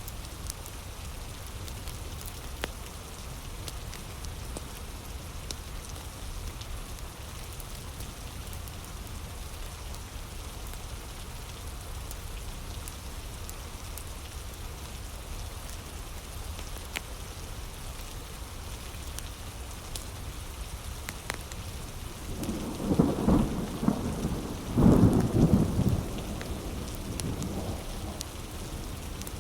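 Heavy rain falling steadily, with scattered sharp pops from a crackling wood fire. About three-quarters of the way in, thunder rumbles for a few seconds in two loud surges, the loudest sound here.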